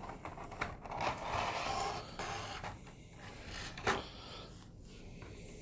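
Clear plastic blister tray crinkling and scraping while an action figure is worked out of it, with one sharp plastic click about four seconds in.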